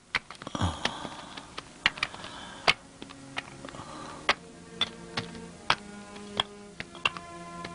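Sharp, irregular clinks and knocks of bricklaying work, bricks and tools being tapped on the scaffolding. From about three seconds in, background music of long held notes comes in under them.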